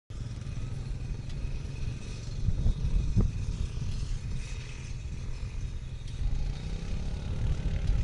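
Uneven low rumble with light rattling and a few knocks, from a ride over a bumpy dirt track, louder a few seconds in.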